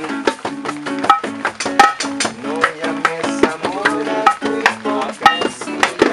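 Acoustic guitar strummed in a steady, quick rhythm, with a man singing over it.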